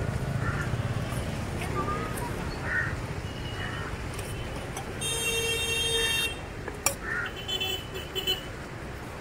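Street traffic noise with a vehicle horn honking once, about five seconds in, for just over a second. A single sharp click comes shortly after.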